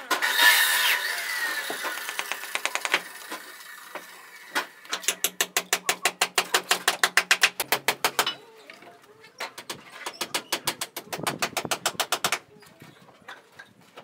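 A bricklaying trowel scraping mortar, then rapid tapping on bricks to bed them into the mortar. The tapping comes in two runs of about three seconds each, roughly eight taps a second.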